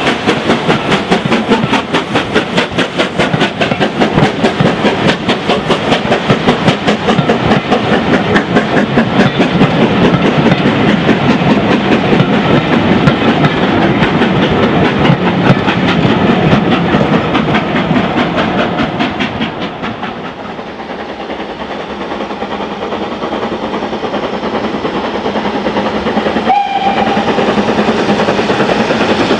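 LNER B1 4-6-0 steam locomotive passing close with rapid exhaust beats, followed by its coaches rumbling and clattering by on the rails. After about twenty seconds the sound drops, and a BR Standard 4MT 2-6-4 tank engine is heard working towards the listener, with a short whistle near the end.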